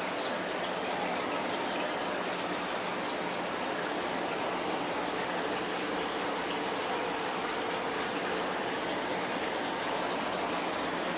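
Aquarium filter outflow pouring a stream of water onto the tank's surface: a steady splashing gush, with a faint steady hum underneath.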